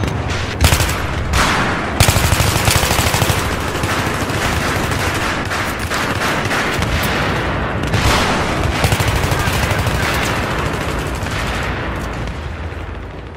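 Battle scene of continuous rapid gunfire with machine-gun bursts, broken by several heavy blasts. The strongest blasts come about two seconds in and about eight seconds in, and the firing fades out near the end.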